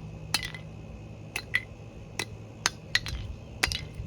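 A hammer striking an air horn: a series of sharp, irregularly spaced hits, about eight in four seconds, some followed by a short ringing.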